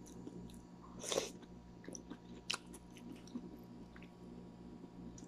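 A person chewing a mouthful of instant noodles with onion and tomato, faint and close, with a few small crunches and mouth clicks. A short louder noise comes about a second in.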